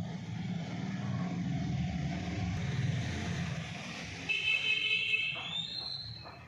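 A rooster crowing once, starting about four seconds in and lasting about two seconds, its pitch rising near the end, over a steady low rumble.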